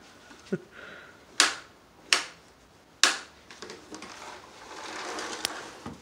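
Switched-off Bissell upright vacuum being handled and pushed on a rug, with no motor running. There is a low thud, then three sharp plastic clacks about a second apart, then a soft rustle near the end.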